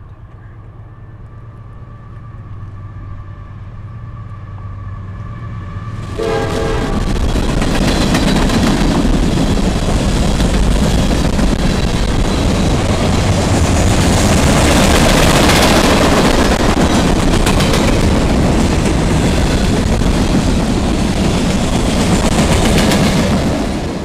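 Freight train locomotive horn sounding a steady chord as the train approaches, growing louder. About six seconds in the locomotive passes close by with a sudden loud rush, then freight cars rumble and clatter past on the rails.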